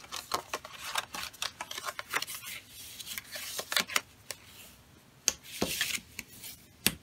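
Cardstock being folded along its score lines and creased with a bone folder: paper rustling and scraping, with scattered irregular clicks and taps.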